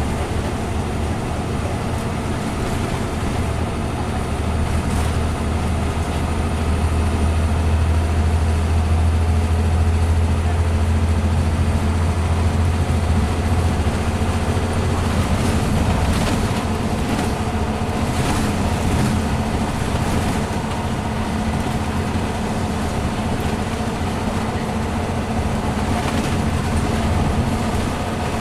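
Interior sound of a Scania N94UB Omnicity single-deck bus under way: the diesel engine and ZF Ecomat automatic gearbox drone steadily under road and tyre noise. The low engine drone eases about twelve seconds in, and a few knocks and rattles sound in the middle and near the end.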